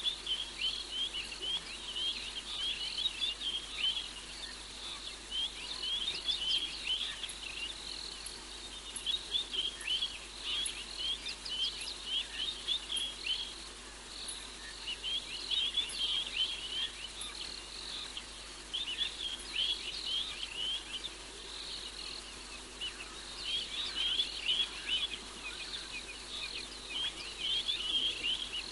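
Night chorus of small animals giving rapid, high chirps in bouts of a few seconds with short lulls between, over a faint steady low hum.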